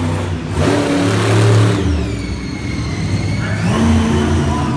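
Monster truck's engine revving hard in bursts as it drives the dirt course, with a high whine that drops as the revs fall and climbs again as they pick back up.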